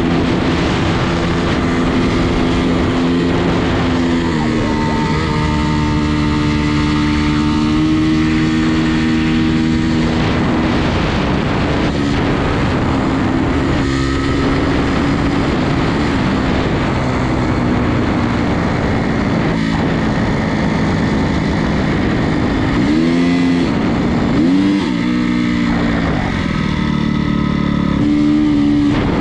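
Honda CRF250R dirt bike's 250 cc four-stroke single-cylinder engine running at a steady pace under way, over a constant rush of wind and road noise. About three-quarters of the way through, the revs swing up and down a few times before settling again.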